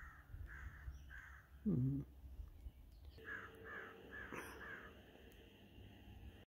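Canada geese honking: a few scattered calls, then a quick run of four or five about three seconds in. A brief low voice-like sound comes about two seconds in.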